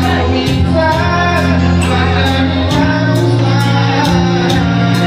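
A song with a sung melody over sustained bass notes and a steady beat.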